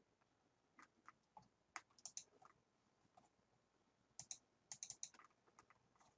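Faint, scattered clicking of a computer's mouse and keys: a few spaced clicks in the first two seconds or so, then a quicker run of clicks from about four to six seconds in.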